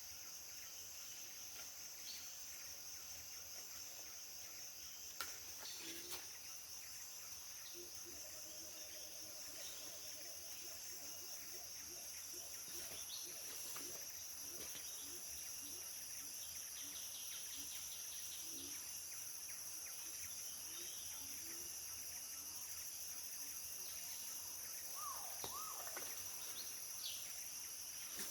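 Steady high-pitched insect chorus in tropical forest, with scattered short bird calls over it, including a run of low short notes in the middle and a few quick gliding calls near the end.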